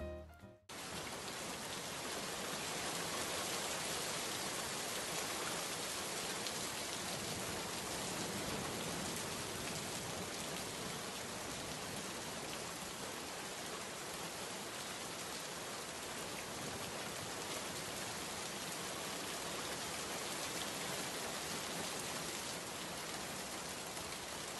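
Steady rain falling, an even patter that begins about a second in, just after a few soft music notes fade out.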